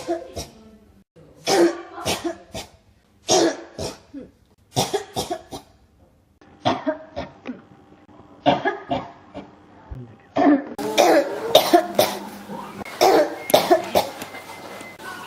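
Repeated coughing fits: short clusters of several coughs each, a second or two apart. About two-thirds of the way through they come close together with hardly a pause.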